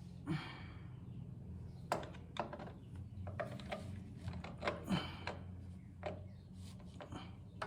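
Hand tools clicking and knocking against metal in scattered short strokes as vise grips and a screwdriver work a seized screw on a Honda B100 outboard's lower unit, over a faint steady low hum.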